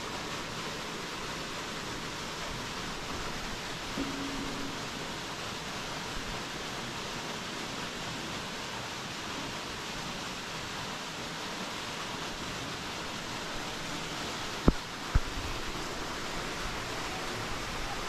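Steady rushing of river water, an even hiss with no change. About fifteen seconds in, two sharp knocks come half a second apart.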